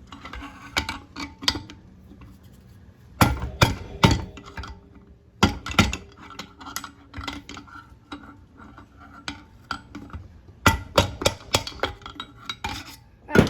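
Metal tools and engine parts clinking and clattering as a two-stroke lawnmower engine is being taken apart, in irregular clusters of sharp knocks; the loudest come about three seconds in, around six seconds, and near the end.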